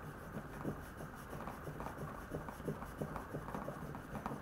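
A 52100 steel knife edge sawed back and forth in a groove in a wooden board charged with white aluminium oxide compound, making a run of faint, short scratchy strokes of steel rubbing on wood. This is the compound polishing out the 1000-grit waterstone scratches toward a mirror bevel.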